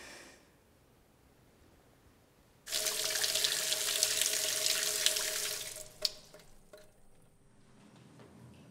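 Tap water running hard, turned on abruptly about three seconds in and stopping about three seconds later. A single sharp click follows just after it stops.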